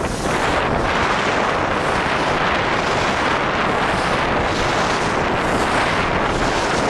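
Steady rush of wind buffeting the microphone of a camera held out by a downhill skier, mixed with the hiss of skis sliding over spring snow, with swells every so often.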